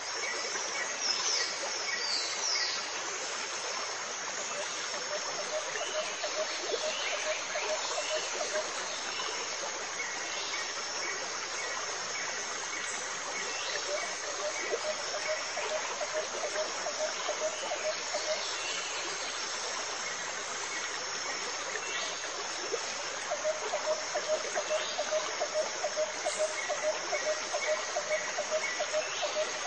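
Steady running-water noise with animal calls over it: a fast pulsing trill that comes and goes three times, and short high chirps scattered throughout, like a stream-and-insect nature ambience.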